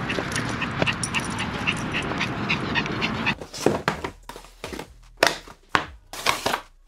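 A dog panting quickly as it runs, with a steady rush of movement noise underneath. About three seconds in this cuts off abruptly and gives way to hands handling a cardboard GoPro Light Mod box on a wooden table: short taps, scrapes and slides of cardboard.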